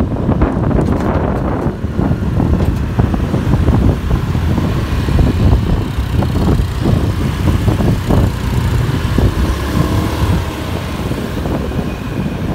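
Traffic riding noise recorded from a moving vehicle: a heavy, steady low rumble of engines and tyres, with wind buffeting the microphone.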